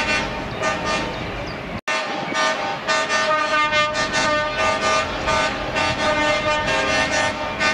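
Many truck air horns sounding together: several held tones overlapping, with repeated short toots on top. The sound drops out abruptly for an instant a little under two seconds in.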